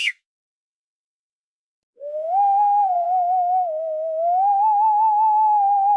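Wind-whistle sound effect: a single high, wavering whistle tone that comes in about two seconds in. It glides upward, sags, then climbs again.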